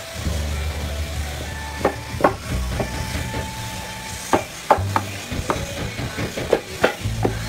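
Steel-headed hammer tapping carved wooden door panel pieces into place: about ten sharp wooden knocks at irregular spacing, starting about two seconds in. Background music plays underneath.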